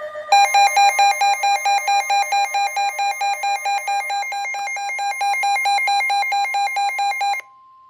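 Electronic emergency-alert attention tone, flipping rapidly between two pitches about four times a second, that marks the start of a new severe thunderstorm warning. It cuts off suddenly about seven seconds in, leaving a faint steady tone.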